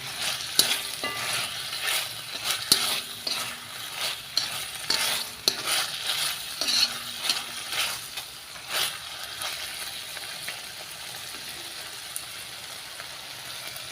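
Sliced beef in spicy Korean sauce sizzling in a pan while a utensil stirs it, with sharp knocks and scrapes against the pan. The knocks stop about nine seconds in, leaving a steady sizzle.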